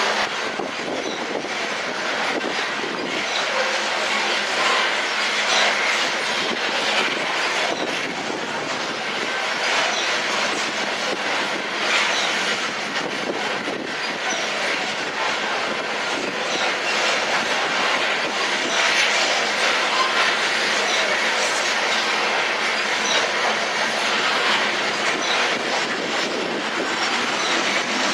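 Loaded coal hopper cars rolling past: a steady rolling rattle of steel wheels on rail, with irregular clicks and occasional light high squeals from the wheels.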